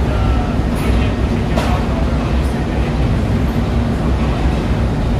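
Loud, steady drone of a ship's running engine-room machinery, deep and continuous with a constant hum in it.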